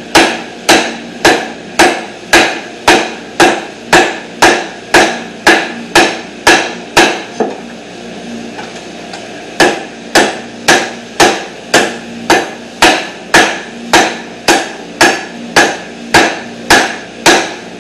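A light 1 kg hand sledge striking a steel bar clamped in a bench vise, metal on metal, about two blows a second, bending the bar into a curve. The blows pause for about two seconds midway, then resume at the same steady pace.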